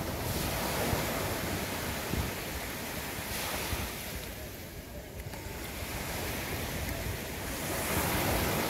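Small waves breaking and washing up a sandy shore. The wash swells about three seconds in and is loudest near the end as a wave breaks.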